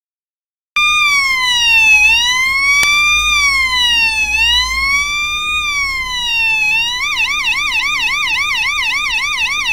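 Homemade two-NE555 siren circuit sounding through an 8-ohm speaker. It starts abruptly about a second in with a slow wail rising and falling about every two and a half seconds. About seven seconds in it switches to a fast police-style warble of about four swoops a second, selected with the circuit's pushbutton. There is a single click about three seconds in.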